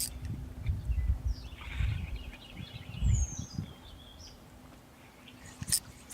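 Wind buffeting the microphone in low gusts that ease off after about three and a half seconds. Birds chirp over it, with a short falling whistle about three seconds in and a sharp click near the end.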